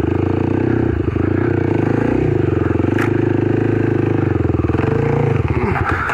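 Kawasaki KLX300's single-cylinder four-stroke engine running at a steady speed on the trail, with a single sharp click about three seconds in. Near the end the engine note drops and fades away.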